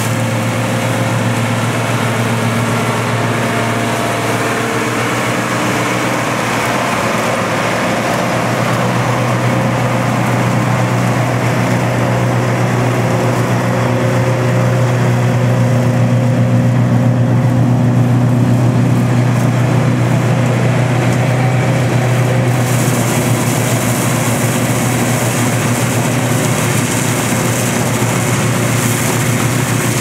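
Massey Ferguson 2640 tractor's diesel engine running steadily under load, driving a Kidd single-chop forage harvester that chops grass and blows it into a silage trailer. The sound grows a little louder about halfway through.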